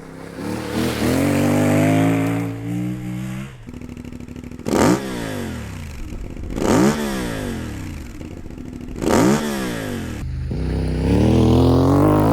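CFMOTO 450MT parallel-twin engine revving through its exhaust. The revs climb and hold for a few seconds, then come three quick throttle blips, each shooting up and dropping straight back. Near the end the revs climb again under acceleration.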